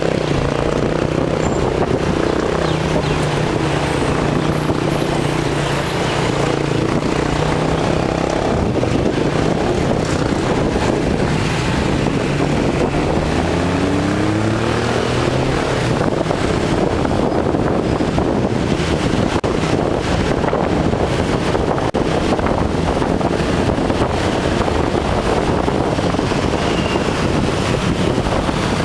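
Motorcycle taxi's engine running while riding in traffic, with wind and road noise rushing over the microphone. About halfway through, the engine note rises several times as it accelerates through the gears, after which wind and road noise dominate.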